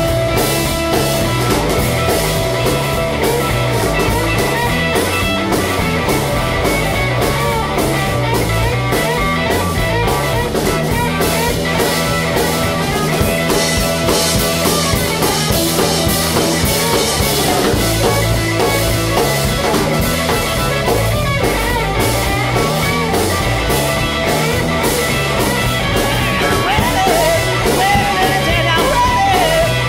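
Rock and roll band playing an instrumental stretch with no vocals: guitar over bass guitar and a drum kit at a steady, driving beat.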